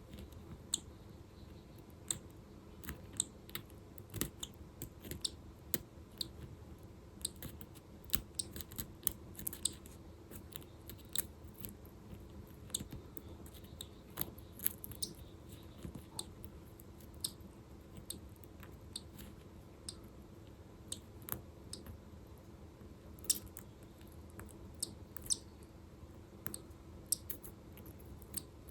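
Eggshell being picked and broken open by hand in small, irregular clicks and crunches, a few a second, over a faint steady hum: assisted hatching of a cockatiel chick stuck in its egg.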